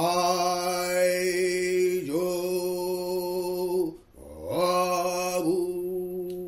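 A single voice doing Nichiren Buddhist chanting, holding long notes on one level pitch. The pitch dips briefly about two seconds in as the syllable changes, the voice breaks off for a short breath near four seconds, and then the chant resumes on the same pitch.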